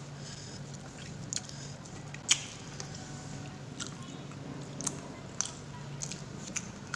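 A person chewing food, with scattered sharp little mouth clicks and smacks, the loudest a little over two seconds in, over a steady low hum.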